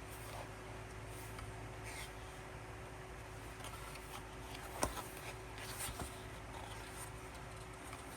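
Quiet handling of album packaging and its paper inclusions: light rustles and taps, with a sharper click about five seconds in, over a steady low hum.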